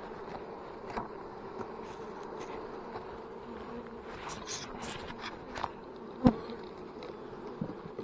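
Honey bees humming steadily over an open hive, with a few sharp knocks, the loudest about six seconds in.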